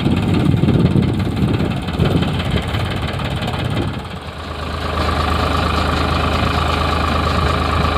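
Tractor diesel engine running, uneven for the first few seconds, then after a brief dip about four seconds in, settling into a steady note with a steady whine.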